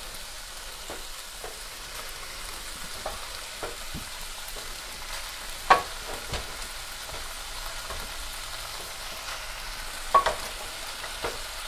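Cooked rice frying with minced garlic in oil in a saucepan: a steady sizzle, stirred with a wooden spatula that knocks against the pot now and then, most clearly about six and ten seconds in.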